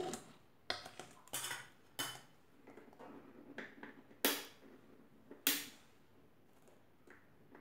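Scattered clinks and knocks of kitchen utensils against a mixer-grinder jar as milk is added to cake batter and the jar is readied, with two sharper knocks about four and five and a half seconds in.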